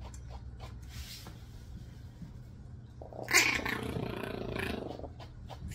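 Yorkie Biewer puppy growling once, about three seconds in, a rough growl of about two seconds that is loudest at its start, over a steady low hum.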